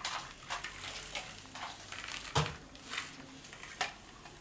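Small plastic toy vehicles clicking and knocking as a child's hands pick them up, push them and set them down, with one louder knock about halfway through.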